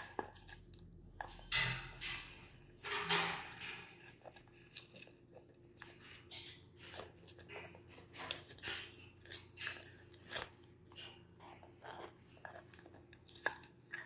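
Blue-and-gold macaw gnawing a wooden branch with its beak: irregular sharp cracks and crunches of wood being bitten and torn, with two louder, longer crunches in the first few seconds.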